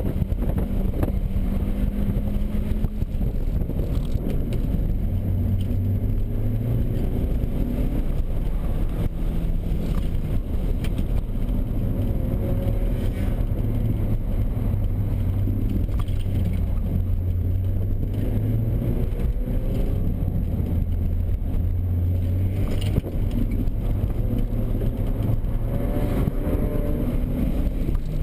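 Audi A4's engine heard from inside the cabin during a hard autocross run, its note stepping up and down as the car accelerates, lifts and shifts, over steady road noise.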